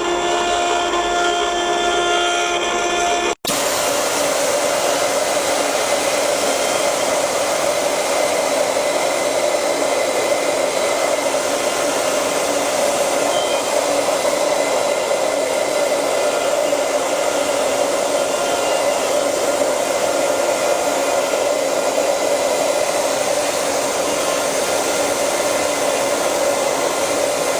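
CNC wood-turning lathe running. A steady humming tone is cut off abruptly about three seconds in, then the machine gives a loud, even whirring noise.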